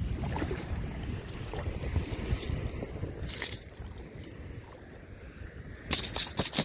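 Wind rumbling on the microphone over flowing spillway water, easing off about three and a half seconds in. There is a short hissing burst at about that point, and a louder run of rustling bursts near the end.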